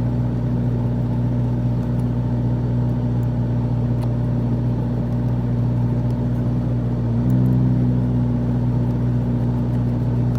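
A steady low machine hum made of a few even tones. About seven seconds in it grows a little louder and slightly higher.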